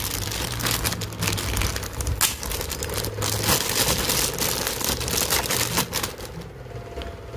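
Clear plastic bag crinkling and crackling as hands work it open and pull headphone cables out, dying down about six and a half seconds in. A steady low hum runs underneath.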